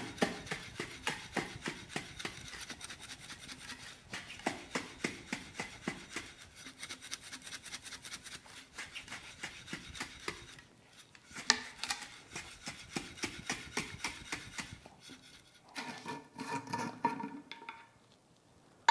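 Dry silica sand and natural hydraulic lime being shaken in a sealed glass jar with a metal lid to mix them: rhythmic swishing and rubbing at about three or four shakes a second, with one sharper knock midway. Near the end comes a softer grating as the metal lid is twisted off the glass.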